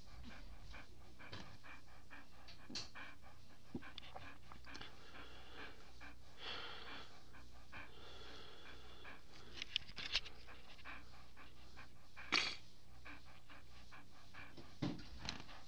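Siberian Husky panting rapidly, with a few sharper, louder sounds in the second half. The dog is suffering from a serious neurological illness.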